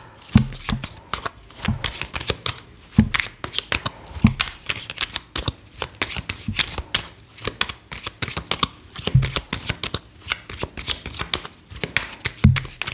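Tarot deck being shuffled by hand: a dense, irregular run of quick papery flicks and snaps, broken by a few low thuds.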